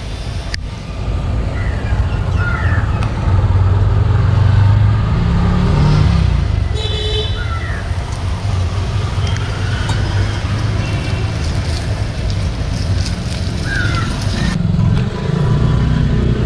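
Busy street traffic noise: a steady rumble of passing vehicles, with a short high-pitched horn toot about seven seconds in.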